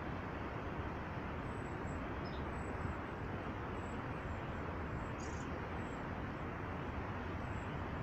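Steady outdoor background noise with no distinct events, and a couple of faint, brief high chirps about two and five seconds in.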